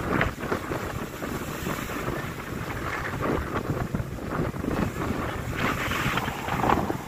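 Ocean surf: waves breaking and washing up the beach, with wind buffeting the microphone.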